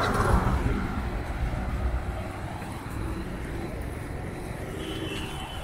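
Wind rushing over the microphone of a phone riding on a moving bicycle, with the low rumble of the road and nearby street traffic. It is loudest in the first second and then eases off.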